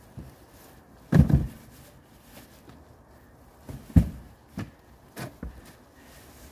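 Car tyres in plastic bags being heaved into a car's boot: a heavy thud about a second in, a sharp loud knock about four seconds in, then a few lighter knocks as they are shoved into place.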